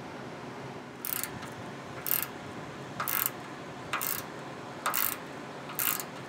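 Hand ratchet clicking in short bursts about once a second, six strokes starting about a second in. It is tightening a bolt through a stack of spacer nuts to draw up and set a rivet nut in the truck's frame.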